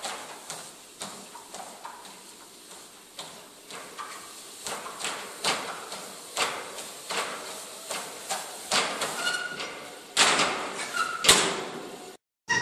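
Hands slapping the belt of a running treadmill during a handstand walk: a string of irregular smacks that grow louder, ending in a louder clatter and thud near the end as the person tumbles off the back onto the floor.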